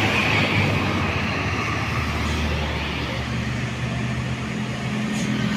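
A heavy diesel vehicle running past on the road, with tyre and road noise. A low engine hum settles in about halfway through.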